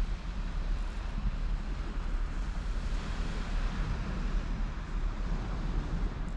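Wind buffeting the microphone in a steady low rumble, with the wash of surf behind it.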